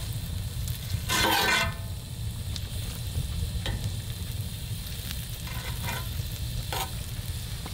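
A pat of butter melting and sizzling in a hot cast iron skillet as a fork pushes it around the pan, the fork scraping the iron a few times. A brief, louder squeal sounds about a second in.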